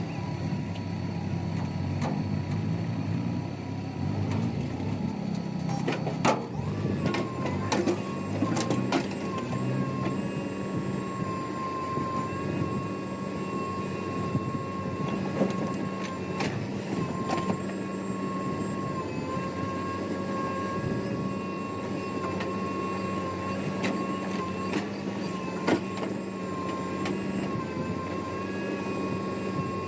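Diesel engine of heavy machinery running steadily under work. About six seconds in a steady high whine sets in, and a few sharp knocks sound here and there.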